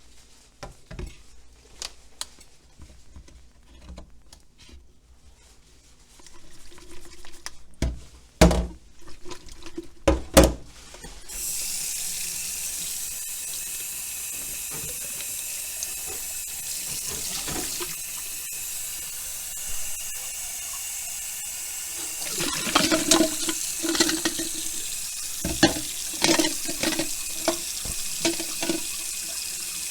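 A few sharp knocks, then a water tap is turned on about a third of the way in and runs steadily, with a burst of knocks and clatter over the running water near the end, as ice is worked out of a plastic bottle.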